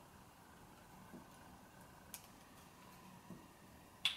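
Faint clicks and ticks of a Canon PowerShot G10's plastic housing being pressed back into place by hand, a few scattered small clicks with the sharpest one near the end as the part seats.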